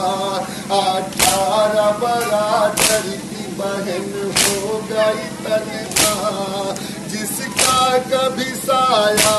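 Male voice singing a noha unaccompanied, a slow lament, with loud, sharp chest-beating (matam) strikes landing in an even rhythm about every second and a half, six times.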